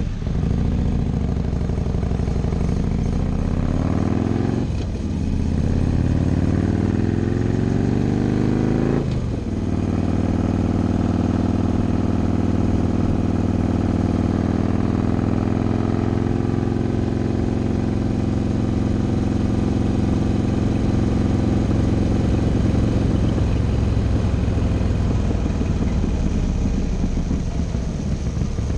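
BMW S1000R's inline-four engine accelerating through the gears over a steady rush of wind: the pitch climbs, drops sharply at an upshift about five seconds in, climbs again and drops at a second upshift about nine seconds in, then holds steady at cruising speed, easing off a little near the end.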